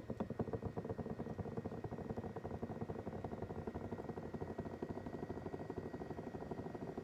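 Doctor Air 3D massage seat's massage mechanism running with a fast, even rattle and a thin steady whine above it. This is the abnormal noise (異音) the seat makes.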